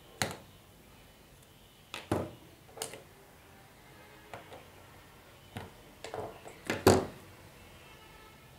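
Scattered clicks and knocks of a plastic multi-bit screwdriver set being handled, as bits are pulled from the handle and the tool is knocked against the wooden table. They come singly and in pairs, with the loudest knock about seven seconds in.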